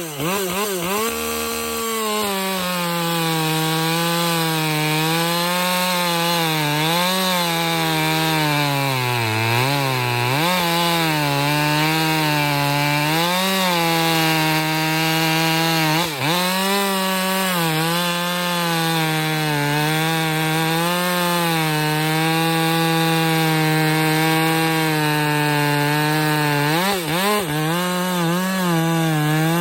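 Stock Husqvarna 550 XP two-stroke chainsaw running at full throttle, its 18-inch bar buried in an oak log. The engine holds a high, steady pitch that dips and recovers a few times.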